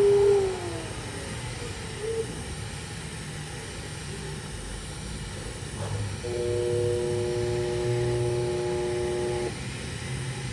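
TIG welding on a pipe turned by a rollout welding positioner: a steady low hum and hiss. Just after the start, a steady tone slides down in pitch and fades. From about six seconds to nine and a half, a cluster of steady tones sounds and then stops abruptly.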